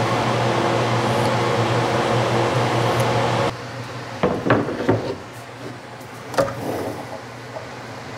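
A workshop power tool running steadily, which cuts off abruptly about three and a half seconds in. A few sharp knocks and clatters of wood follow, as pieces are handled.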